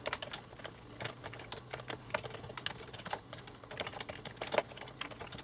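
Typing on a computer keyboard: an irregular run of key clicks, several a second.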